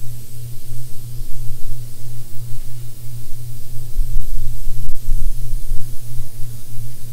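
Airbrush blowing a steady hiss of air over sizing glue to dry out a flooded, over-wet coat. Underneath runs a low hum that pulses evenly.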